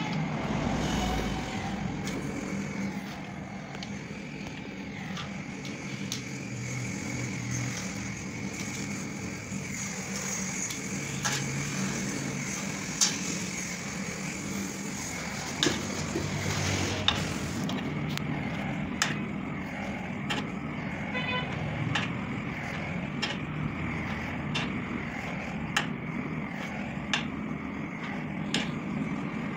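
Handheld blowtorch burning with a steady hiss while solder is worked onto a radiator, with scattered light metallic ticks and taps. The high part of the hiss drops away about two-thirds of the way through.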